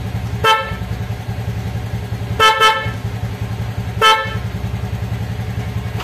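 Honda BeAT scooter's electric horn sounding four short beeps: one, then a quick double, then one more. Its single-cylinder engine idles steadily underneath.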